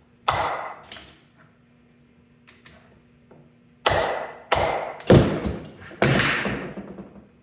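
Five hammer blows on a wooden block set on a mountain-bike fork's steer tube, driving the fork down out of the head tube. The bike frame rings briefly after each one. The first blow lands just after the start, and the other four come in quicker succession from about four seconds in.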